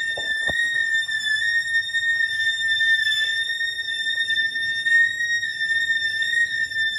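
A steady high-pitched squeal from a 2011 Nissan Xterra's running engine: one unbroken tone with overtones, the noise the vehicle was brought in for. A short knock sounds about half a second in.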